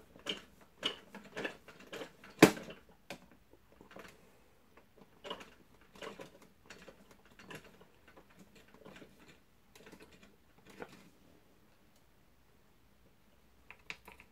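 Flat screwdriver working a screw into a vacuum cleaner's handle: irregular small clicks and scrapes, with one sharp knock about two and a half seconds in. It goes quiet for a couple of seconds near the end before a few more clicks.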